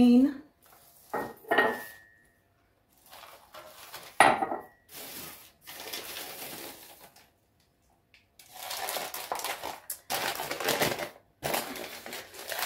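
Ceramic mugs and dishes clinking as they are handled, with one sharp chink that rings briefly about four seconds in, then crumpled paper wrapping rustling in several long bouts as a black ceramic dish is unwrapped.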